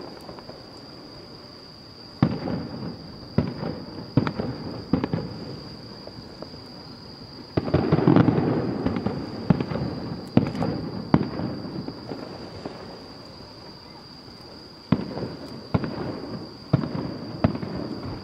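Aerial firework shells bursting at a distance: sharp separate bangs about a second apart, each trailing off in a rumble, with a denser stretch of overlapping bursts near the middle.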